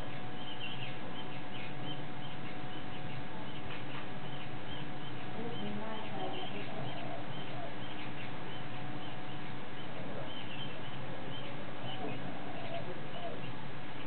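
Small wild birds chirping over and over in short, high notes, several a second, against a steady background hiss and hum.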